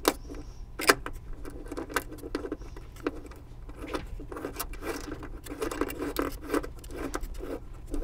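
Irregular small metallic clicks and clinks of hand work as a 10 mm bolt is threaded in by fingers at a seat belt retractor's mounting bracket, over a low steady hum.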